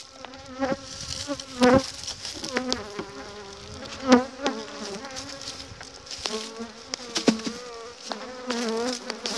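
Honeybees from a defensive colony buzzing around an opened hive, a wavering hum, with a few sharp knocks as the lid comes off, the loudest about four seconds in.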